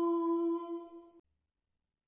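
Wolf howling: the end of one long, steady howl that cuts off suddenly a little over a second in.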